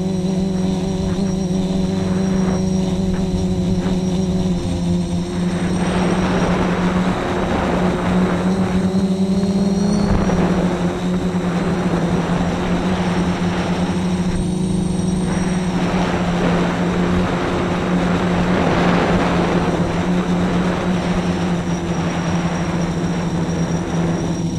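Multirotor's motors and propellers buzzing steadily, heard from a camera mounted on the frame. From about six seconds in, rushes of wind noise come and go over the buzz.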